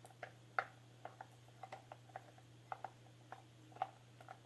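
A spoon stirring slime in a bowl, clicking and tapping lightly against it about a dozen times at an uneven pace, over a faint steady hum.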